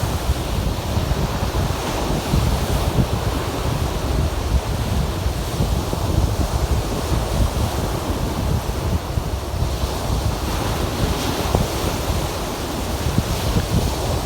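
Lake Erie waves breaking and washing on the shore, with wind buffeting the microphone as a fluttering low rumble underneath.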